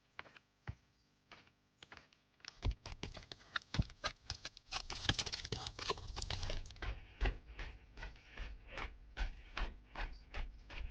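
Footsteps crunching on loose, stony ground: a close, irregular run of crunches and clicks. A low rumble joins in about two and a half seconds in.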